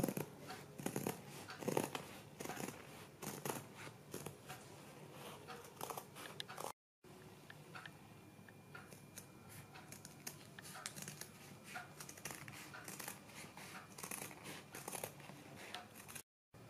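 Scissors snipping through folded paper along a pattern line: a run of short, irregular snips, louder in the first few seconds and fainter after.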